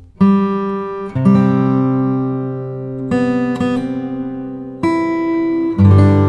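Background music: acoustic guitar chords struck one at a time and left to ring, a new chord every second or so, each fading slowly.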